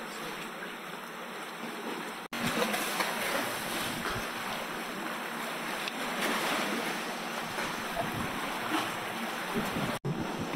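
Sea surf: a steady rush of waves breaking and washing. It cuts out for an instant twice, about two seconds in and near the end.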